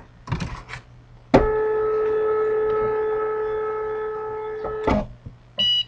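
Cricut cutting machine powering on: a few clicks, then a steady whine at one pitch for about three and a half seconds as the machine starts up, and a short high beep near the end.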